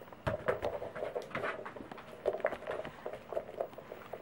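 Pembroke Welsh corgi pushing a hard plastic treat-dispensing ball across a wooden floor with its nose: irregular knocks and rattles as the toy rolls and bumps, along with the dog's panting.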